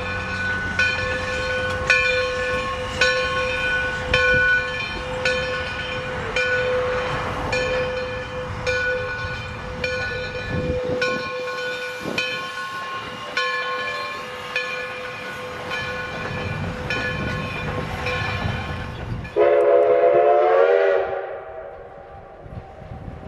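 Alco 2-8-0 steam locomotive No. 60 with its bell ringing steadily, about one strike a second. About nineteen seconds in, its chime whistle sounds a loud blast that holds for a couple of seconds and then dies away.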